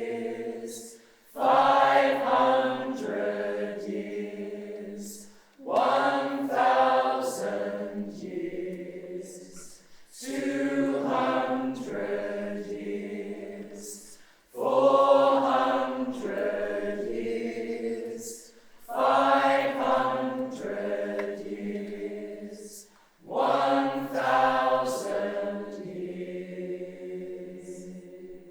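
Choir singing long held chords unaccompanied, in six phrases about four to five seconds apart, each entering strongly and then fading.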